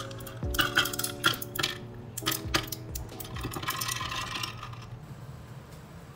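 Ice cubes dropped one after another into a tall glass of drink, clinking sharply against the glass and each other over the first few seconds, followed by a brief rattle of ice about three and a half seconds in.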